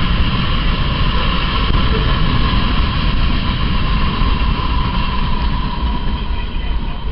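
Freight train cars rolling past on the track: a steady rumble of wheels on rail with a steady higher rail ring, easing slightly near the end as the last car clears.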